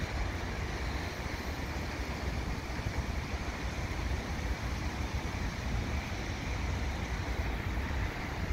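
Wind buffeting the microphone over the steady rumble of a freight train rolling away into the distance.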